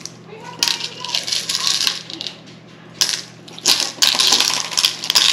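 Glitter slime with plastic gemstones mixed in, squeezed and kneaded by hand: dense crackling and clicking in three spells, the longest near the end.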